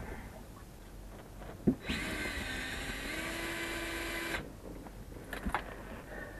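Cordless drill running for about two and a half seconds, its motor pitch rising and then holding steady. There is a knock just before it starts and a few light knocks after it stops.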